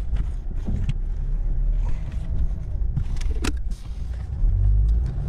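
Car cabin noise while driving: a steady low engine and road rumble, with a few sharp clicks and knocks, the loudest about three and a half seconds in.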